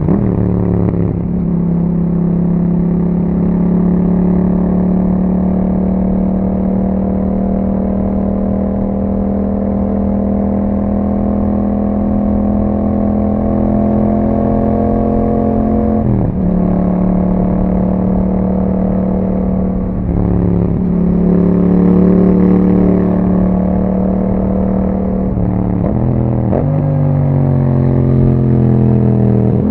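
2021 Yamaha MT-07's 689 cc parallel-twin engine breathing through an Akrapovic exhaust, running at steady cruising revs. Several times the revs dip briefly and climb back.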